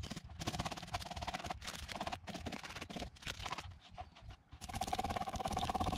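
Knife blade scraping the scales off a whole grass sweetlip on a plastic cutting board: rapid rasping strokes in runs, broken by short pauses about two seconds in and again near the middle.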